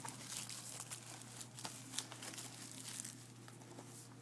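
Plastic shrink-wrap being torn and peeled off a Blu-ray case by hand: a run of crinkling and crackling, thinning out near the end.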